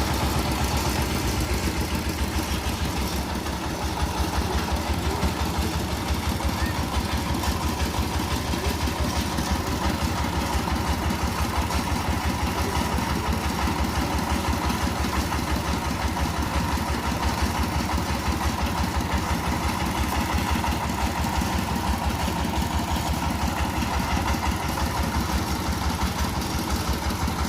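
Engine of a road construction machine running steadily, with an even, fast low throb.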